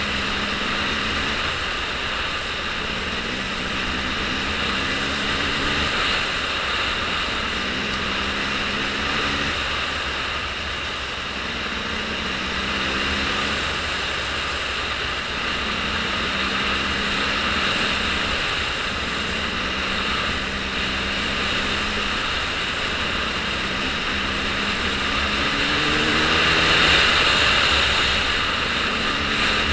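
A motor running steadily under a constant rushing noise, its low hum shifting up and down in pitch every second or two.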